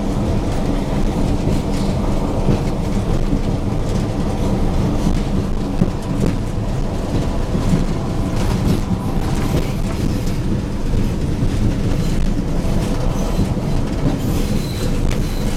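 Diesel locomotive engine running steadily as a train moves along the track, with wheels clattering and clicking over the rails.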